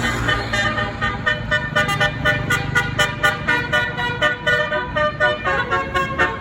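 A tour bus's basuri, a multi-note musical air horn, playing a tune as a quick, even run of short notes, about four a second, with the bus's engine running underneath.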